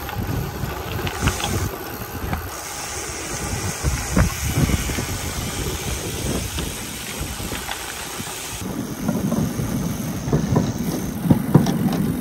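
Wind buffeting the microphone of a camera on a moving gravel bike: a gusty low rumble with hiss, which grows louder about nine seconds in.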